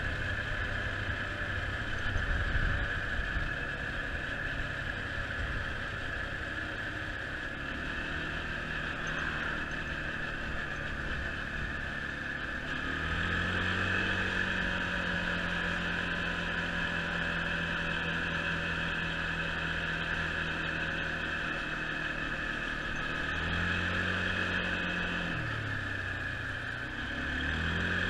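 Quad bike engine running while ridden along a street, with wind noise on the microphone. The engine note steps up in pitch about halfway in, holds steady, drops low near the end as it slows, then climbs again.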